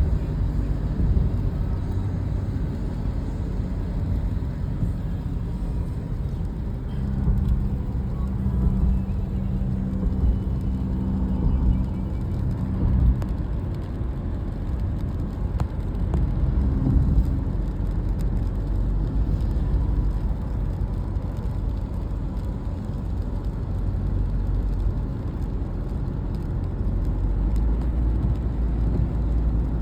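Motor vehicle on the move: a steady low rumble of engine and road noise, with a held engine hum rising out of it for several seconds in the middle.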